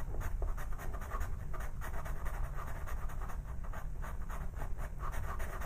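Ochre pastel pencil scratching across textured pastel paper in a quick run of short strokes.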